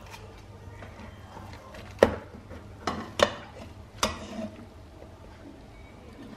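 Metal spoon clinking and scraping against an aluminium pot while scooping cooked biryani rice: four sharp clinks, the loudest about two seconds in, over a low steady hum.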